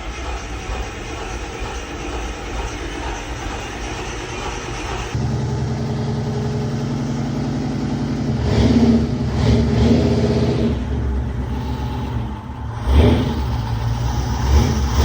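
1979 International pickup's engine running cold, blipped through its new throttle cable and linkage, rising in revs about 8 to 10 seconds in and again about 13 seconds in. It comes in suddenly at the start and settles into a lower, heavier note about 5 seconds in.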